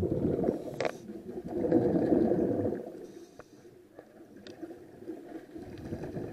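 Scuba diver's exhaled bubbles from a regulator, bubbling and gurgling underwater in two long bursts over the first three seconds, then quieter with a few small clicks.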